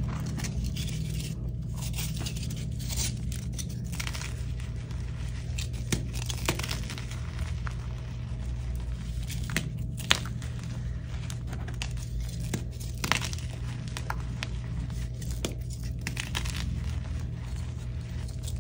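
Hands crushing and crumbling soft, crunchy dyed gym chalk blocks and loose chalk powder: irregular soft crunches and crumbles, with sharper snaps as pieces break about ten and thirteen seconds in. A steady low hum runs underneath.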